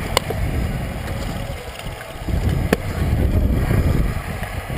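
Hard little wheels rolling over concrete, a continuous low rumble mixed with wind buffeting the microphone, broken by two sharp clacks, one just after the start and one nearly three seconds in.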